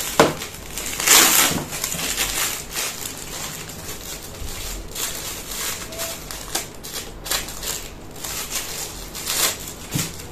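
A clear plastic packaging bag crinkling and crackling in irregular handfuls as a small pair of kitchen tongs is unwrapped, with a sharp click right at the start and the loudest crackle about a second in.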